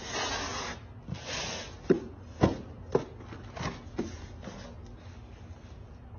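Cardboard parcel boxes being picked up and stacked: two short scraping rustles, then a run of about five dull knocks as the boxes are set on one another.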